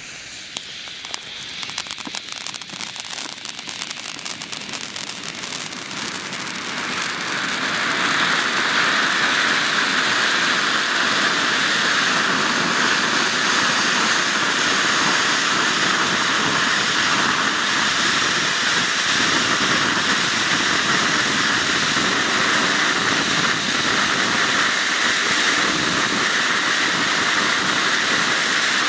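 Four Pyroshine GF01 ground fountain fireworks spraying sparks: they crackle and sputter as they catch, building up to a loud, steady hiss about seven seconds in.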